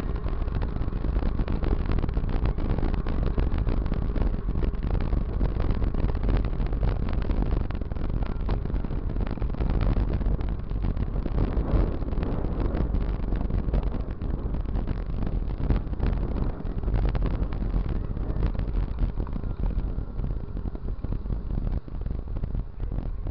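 Continuous rumble and rattling of a bicycle rolling over brick paving, picked up by a camera mounted on the bike, with wind buffeting the microphone. It eases slightly near the end.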